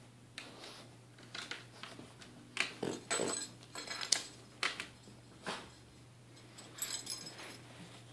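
Irregular clicks, scrapes and rustles as a French bulldog paws at a hard table top and grabs a plush toy off it. The noises come in quick clusters, loudest in the middle.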